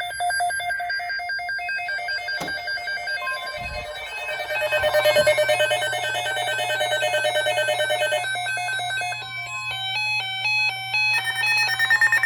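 Several weather radios sounding their electronic alert beeps together as a new alert comes in: layered, rapidly repeating beeps in several pitches, with one steady alert tone in the middle and stepping beep patterns near the end. There is a sharp click about two seconds in.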